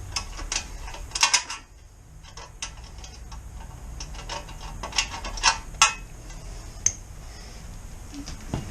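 Socket ratchet clicking in short runs, with metal tool clinks, as a muffler mounting bolt on a motorcycle is started and turned.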